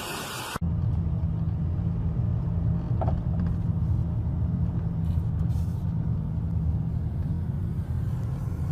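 Steady low rumble of a vehicle engine, starting abruptly about half a second in after a sudden cut from a hissy noise.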